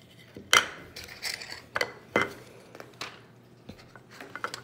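Plastic Lego pieces clicking and clacking as they are handled and pressed together: about six sharp, irregular clicks, the loudest just after the start.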